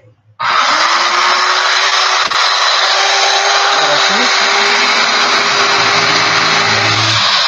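Electric impact drill, its on/off switch bypassed by direct wiring, starts abruptly about half a second in and runs steadily at full speed while boring into a wooden board, being tested for power.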